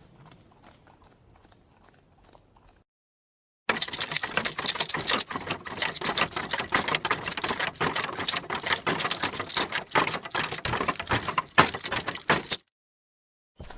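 Faint hoofbeats fading away, then after a short silence a loud, fast, dense clatter of galloping horse hooves that cuts off suddenly about a second before the end.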